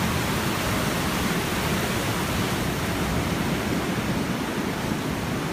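Ocean waves breaking in a steady, even wash of surf noise.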